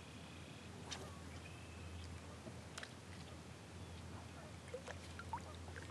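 Quiet marsh ambience on calm water: a steady faint low hum, with a few short sharp clicks about a second in, near three seconds and near the end, and faint short bird calls.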